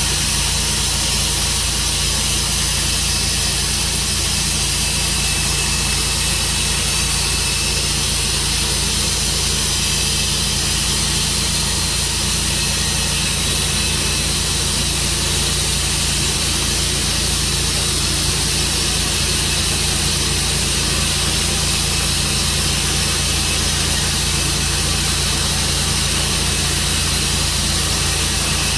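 Tru Cut sawmill running steadily with a continuous engine drone and a constant high hiss over it.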